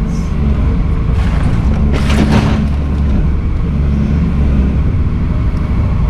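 Volvo EC210CL excavator's diesel engine running steadily under hydraulic load as the arm brings the bucket down onto the crushed refrigerator, with a brief rasping burst about two seconds in.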